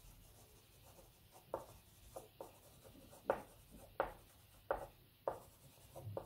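Oil pastel scratching across grainy sugar paper in short, faint strokes, about one or two a second, as feathers are drawn in with short lines.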